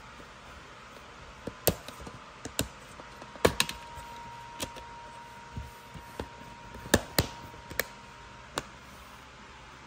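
Plastic DVD keep case being opened and shut by hand: a run of sharp plastic clicks and snaps, loudest about three and a half seconds in and again about seven seconds in.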